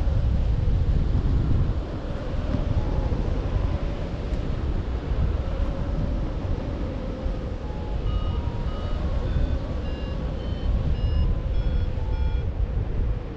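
Airflow buffeting the microphone in flight under a paraglider, a steady rumbling wind noise. From about two-thirds of the way in, a variometer beeps in quick short tones that jump up and down in pitch: its climb tone, the sign of the glider rising in lift.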